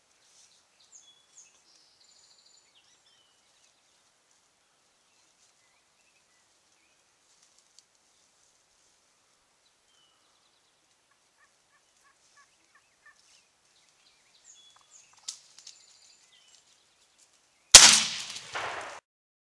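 A single shotgun blast near the end, loud and sudden, fading out over about a second. Before it come faint bird chirps and a short run of evenly spaced wild turkey calls.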